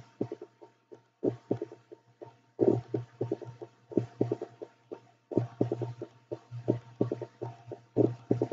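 Computer mouse clicked rapidly and irregularly, several clicks a second in quick clusters, as layer checkboxes are ticked off one after another.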